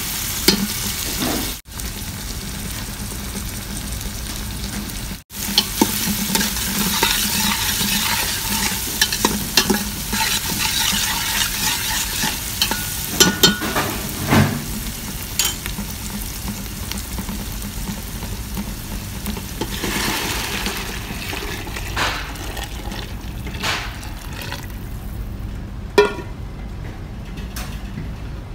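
Diced onion and red pepper sizzling in oil in a stainless steel stockpot, stirred with a spoon that scrapes and clicks against the pot. The sizzle dies down near the end.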